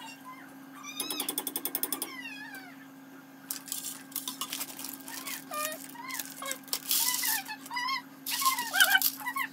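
Many short, high meow-like calls that rise and fall in pitch, repeated over and over, with bursts of hiss between them and a steady low hum underneath.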